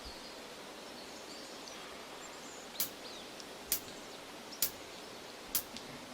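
Faint outdoor ambience with a few soft bird chirps, then four sharp clicks evenly spaced a little under a second apart: a count-in just before the song starts.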